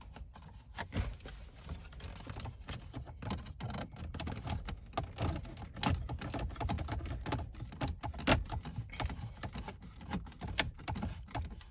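Hand screwdriver turning a screw into the plastic centre-console trim, with many small irregular clicks, taps and scrapes of the tool and plastic parts.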